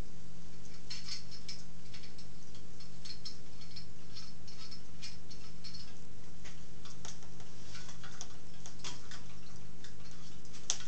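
Light, irregular metallic clicks and ticks as a bolt, washer and square nut are fitted under a lathe's headstock. A steady low hum runs underneath.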